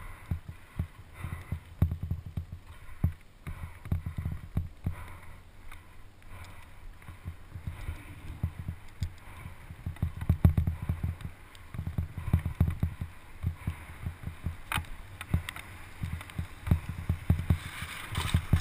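Mountain bike descending a wet dirt trail, heard from a helmet camera: wind buffets the microphone in uneven gusts, and the bike and tyres rattle and click over the bumps.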